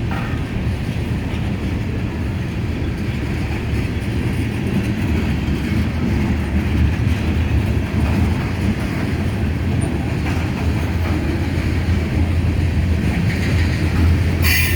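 Freight cars of a long CSX mixed freight train rolling past, a steady low rumble with wheels clattering over rail joints, and a brief sharp clatter near the end.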